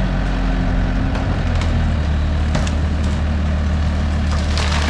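Bobcat skid-steer loader's engine running steadily under load as a tree is pushed over, the trunk cracking and splintering in sharp snaps, the loudest cluster of cracks near the end.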